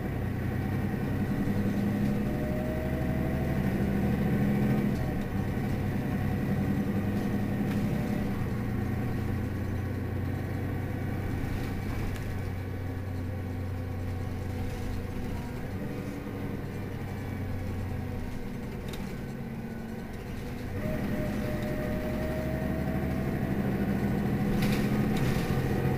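Mercedes-Benz Citaro city bus idling while stationary: a steady low engine hum whose note shifts slightly a few times, with a few light clicks near the end.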